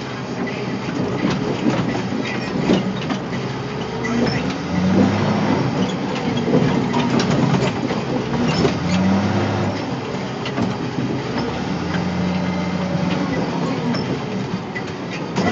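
Caterpillar 525B skidder's diesel engine running as the machine drives, its pitch rising and falling, with constant rattling and clanking from the machine.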